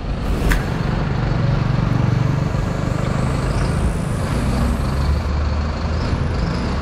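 Street traffic with a large vehicle's engine running nearby in a steady low rumble. A single sharp click about half a second in.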